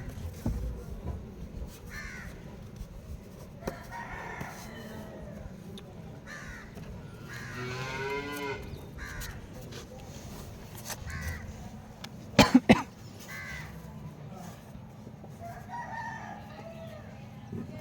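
A rooster crowing once, about eight seconds in, with shorter chicken calls around it. A few sharp knocks come in a quick cluster just after twelve seconds.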